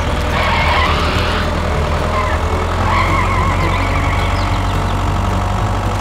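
Small electric motor of a toy DIY tractor running steadily as it pulls a loaded trailer through mud, with a high wavering tone coming and going over the low hum.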